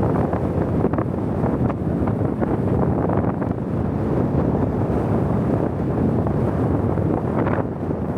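Strong blizzard wind blowing steadily, rumbling on the microphone.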